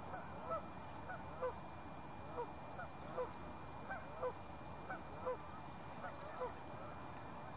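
A flock of geese honking, faint, with short calls coming irregularly, one or two each second.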